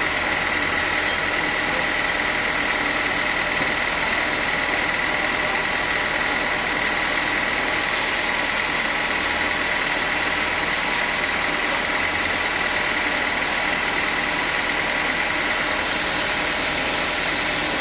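Sawmill machinery running steadily while sawing teak, a continuous machine noise with a constant high whine.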